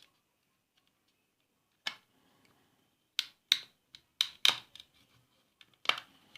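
Plastic remote control case being pried apart with a thin metal blade: sharp plastic clicks and snaps as the snap-fit clips are worked loose. There is one click about two seconds in, then a quick run of them in the second half.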